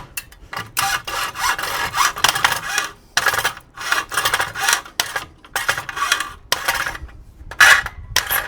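Hand saw cutting with uneven back-and-forth strokes, about one to two a second.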